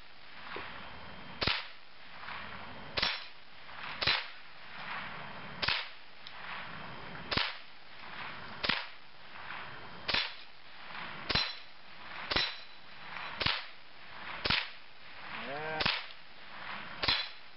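Remington Nylon 66 semi-automatic .22 rifle firing about thirteen shots in steady succession, one every second to second and a half, from the hip at steel plate targets. Several hits leave a short metallic ring from a struck plate.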